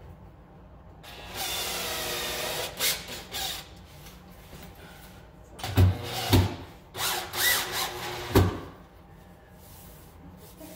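Cordless drill driving a screw, its motor running steadily for about two seconds, followed a few seconds later by several sharp knocks.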